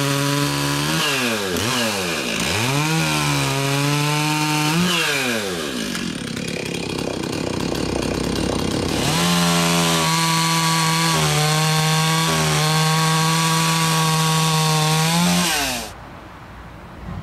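Stihl 036 two-stroke chainsaw with a sharp Oregon 72JGX chain cutting wood at full throttle. The engine pitch dips and climbs back several times in the first few seconds as the chain loads in the cut, then holds steady and high before falling away about a second before the end.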